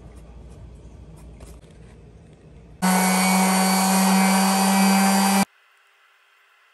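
Makita electric finishing sander running steadily on a white-primed wooden panel, starting abruptly about three seconds in and cutting off suddenly some two and a half seconds later. Before it, faint scraping with light ticks as a brush works wet primer over the panel.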